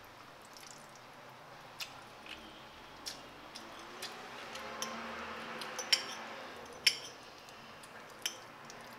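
Metal fork clinking and scraping against a ceramic plate while stirring saucy noodles: scattered sharp clinks about once a second, the loudest two about six and seven seconds in.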